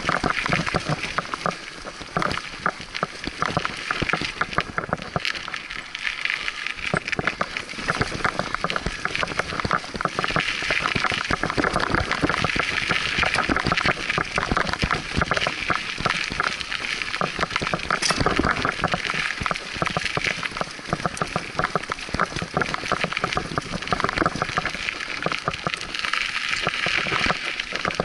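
Scott Aspect 35 hardtail mountain bike riding fast down a dirt singletrack: tyres rolling over dirt and roots with a continuous rattling of the bike.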